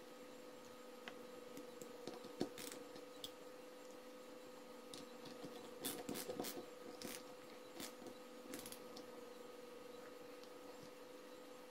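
Small metal clicks and scrapes as nuts and a copper bus bar are handled and fitted onto supercapacitor terminals: a sharp click about two seconds in and a cluster of clicks around six seconds. A faint steady hum runs underneath.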